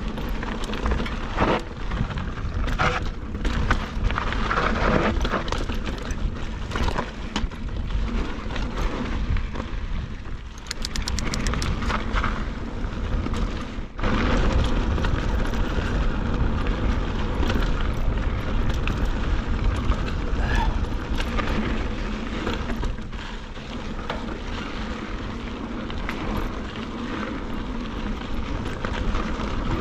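Mountain bike rolling over dry, gravelly desert singletrack, with wind rumbling on the action camera's microphone, tyre crunch, and rattling knocks from the bike over rocks. A brief run of rapid clicking comes about ten seconds in.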